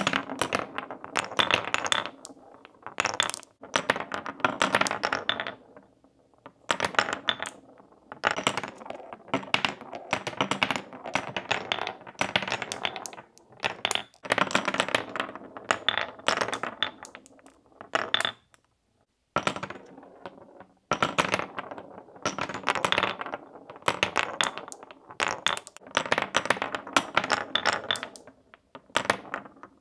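Glass marbles rolling and dropping through the carved channels and tunnels of solid beech-wood Cuboro blocks: quick runs of sharp clicks and clattering rattles, broken by a brief pause about two-thirds of the way through.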